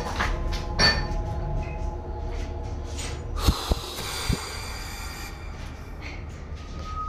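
Footsteps on a debris-littered concrete floor, with short scuffs and crunches at a walking pace and a few sharp thuds about halfway through.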